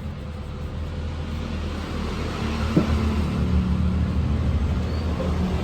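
Engine idling steadily with a low rumble, with a single light click about three seconds in.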